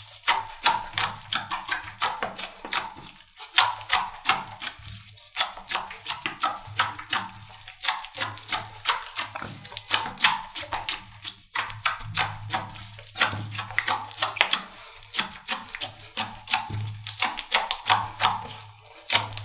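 Slime being squeezed and poked, giving dense, irregular crackling clicks and pops, several a second, over background music.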